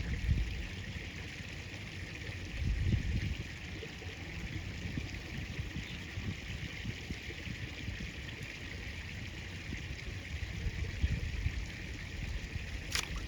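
River water running steadily, with a low rumble that swells briefly about three seconds in and a single sharp click near the end.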